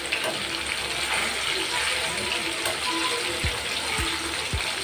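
Breaded pork chops deep-frying in hot oil in a pan: a steady, crackling sizzle. A few soft low thumps come in the last second or so.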